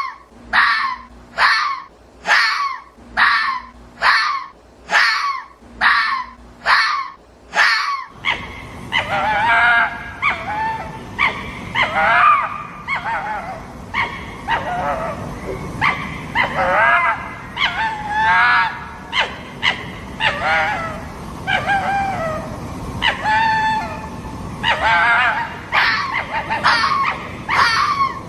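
Fennec fox calls: a run of short, evenly repeated yips, about one and a half a second. About eight seconds in they give way to a noisier stretch of varied whines, chirps and squeals that bend in pitch, and quick repeated calls return near the end.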